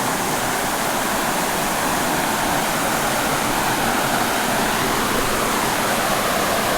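Small waterfall on a mountain creek: water rushing and splashing steadily.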